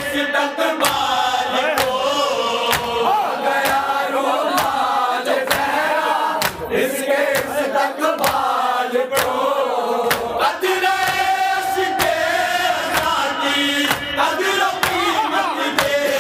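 A group of men chanting a Shia salam (noha) together, with loud rhythmic chest-beating (matam) strikes a little under a second apart keeping time with the recitation.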